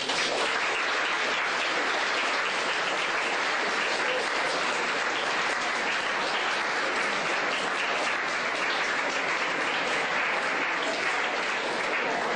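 Large audience of students applauding, starting suddenly and holding steady.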